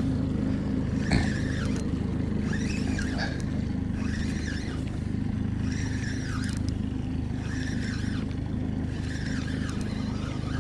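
Outboard motor running steadily at trolling speed, a low even hum, while a spinning reel is cranked with a faint repeating whir about once a second. A single sharp knock about a second in.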